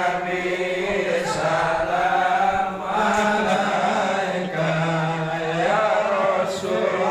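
A group of voices chanting together in unison, a drawn-out recitation in phrases with short breaks every second or two.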